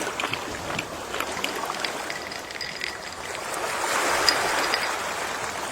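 Gentle sea waves washing on the shore, one swell rising and falling away about four seconds in, with a light crackle of water throughout.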